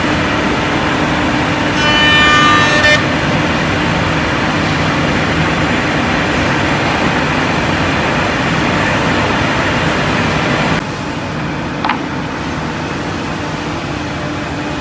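CNC curved drawer-groove milling machine running, its router spindles and dust extraction giving a steady loud hiss, with a whining tone for about a second around two seconds in. About eleven seconds in the sound drops to a quieter steady hiss, with one short tick.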